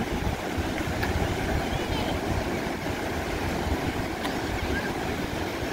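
Wind buffeting the microphone in an uneven low rumble, over the steady wash of breaking surf.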